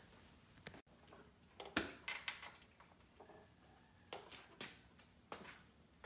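A handful of irregular mallet knocks on a pit bike's plastic bodywork, the loudest about two seconds in, as a part is tapped into place.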